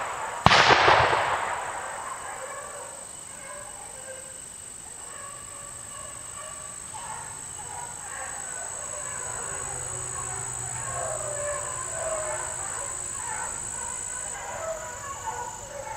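A gunshot about half a second in, the second of two close shots, ringing out and dying away over a second or so. Later, beagles bay faintly, with wavering calls toward the end.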